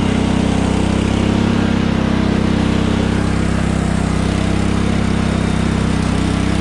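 Cub Cadet riding lawn tractor's engine running steadily at an even, unchanging speed.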